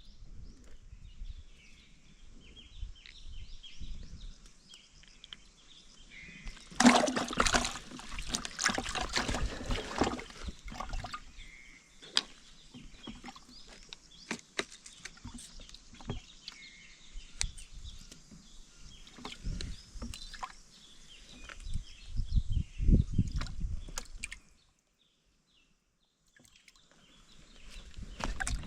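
Water splashing and sloshing, with scattered knocks and clicks, as a freshly caught small fish is handled at the water's edge; the loudest splashing comes about seven seconds in, and the sound cuts out for about two seconds near the end.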